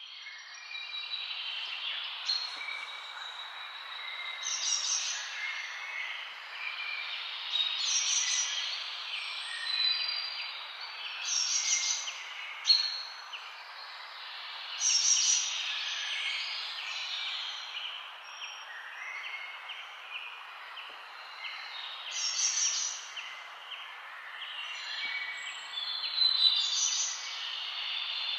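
Birds chirping and calling, with brighter bursts of song every two to three seconds, over a steady hiss.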